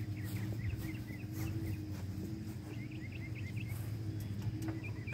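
Small birds chirping in quick series over a steady low engine-like hum. A few light knocks near the end.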